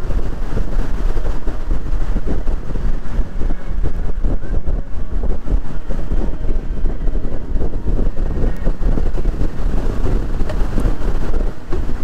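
Gusty sea wind, up to about 22 mph, buffeting the microphone in a loud, uneven rumble. Under it, waves wash in around the pier pilings.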